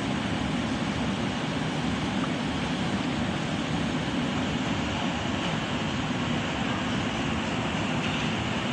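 Water rushing along a narrow walled canal, a steady, even noise with no breaks.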